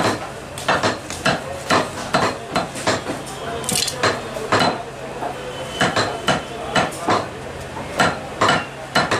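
Butcher's cleaver chopping raw meat on a wooden stump block: a run of sharp chops, about two a second and unevenly spaced.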